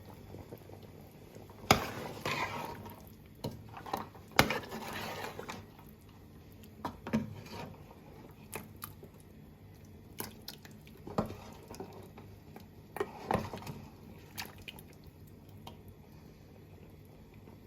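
Metal utensil knocking and scraping against a cooking pot, with a few sharp clinks spread out and short stretches of stirring or scraping, and some liquid sloshing.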